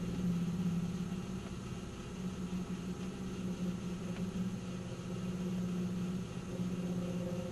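1997 Nissan Maxima's 3.0-litre V6 idling with a steady, low droning resonance, the weird hum that appears at idle and goes away with a little gas; its cause is unknown to the owner.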